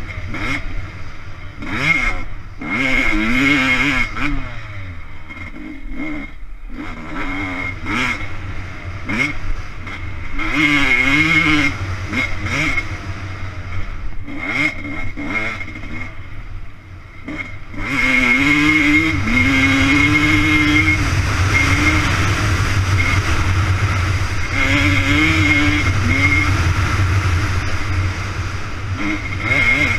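Off-road motorcycle engine under hard throttle while racing, its pitch climbing and falling over and over as the rider shifts and rolls on and off the throttle. There are a couple of brief lulls, one about 17 seconds in, and after it the engine holds strong. It is picked up by a helmet-mounted camera.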